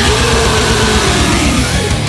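Loud death metal music with dense, distorted band sound, and a held note that swells and then sags in pitch over about two seconds.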